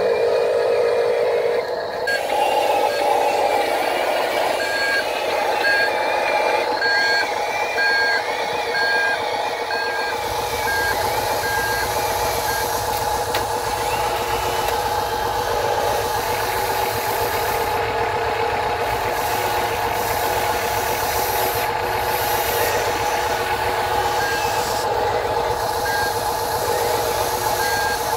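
Steady drone of a heavy construction-machine engine, with a reversing alarm beeping about one and a half times a second from about five to twelve seconds in. A deeper rumble joins about ten seconds in.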